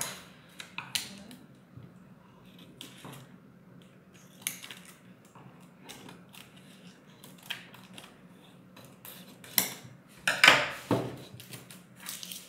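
Hands working adhesive vinyl on a screen-printing frame, pressing, rubbing and handling the film. Scattered scratches, taps and crinkles, with the loudest rustling about ten seconds in.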